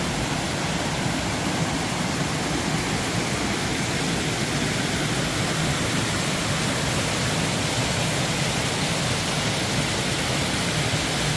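Creek water rushing down small cascades over rock ledges, a steady even rush.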